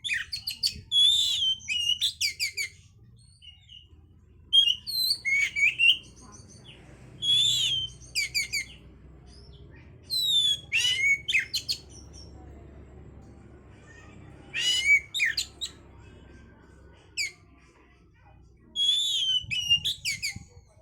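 Oriental magpie-robin (kacer) singing: loud bursts of rapid, varied whistled notes, one every couple of seconds with short pauses between.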